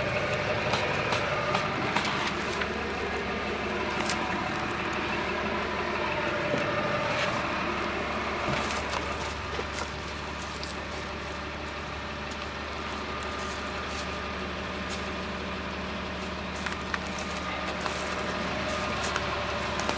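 Diesel engine of an M35A3 deuce-and-a-half truck running steadily at idle, with a few faint clicks over it.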